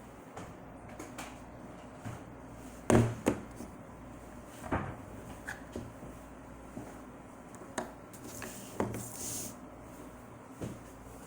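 Scattered knocks and clicks of objects being handled, the loudest about three seconds in, with a brief hiss about nine seconds in; no motor is running.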